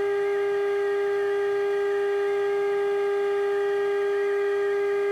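Steady single-pitch test tone, about 400 cycles, from a signal generator's modulation coming out of the 1948 Emerson AA5 radio's speaker while its oscillator is peaked during alignment.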